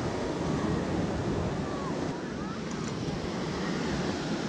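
Sea surf breaking and washing up a sandy beach, a steady wash of noise, with wind buffeting the microphone.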